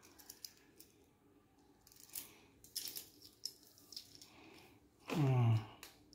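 Light metallic clinks and clicks of a stainless-steel link watch bracelet being handled, with some brief rustling. Near the end comes a man's short low hum that falls in pitch, the loudest sound.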